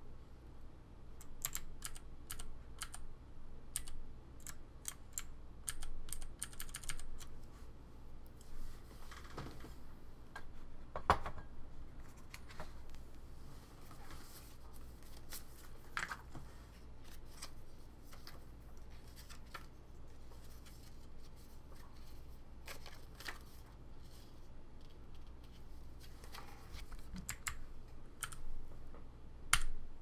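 Typing on a Ducky Mini 60% mechanical keyboard with clicky Cherry MX Green switches: rapid bursts of sharp key clicks for the first several seconds, then a long stretch with only a few single key presses, then typing picks up again near the end.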